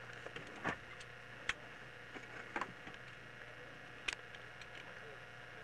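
A few light clicks and knocks, about four, scattered over a faint steady hum.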